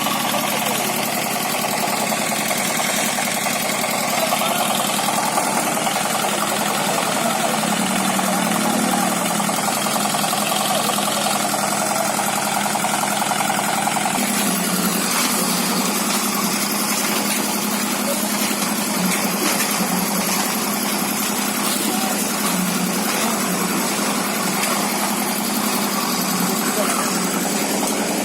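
Engine of concrete-pouring machinery running steadily, its sound shifting about halfway through, with voices mixed in.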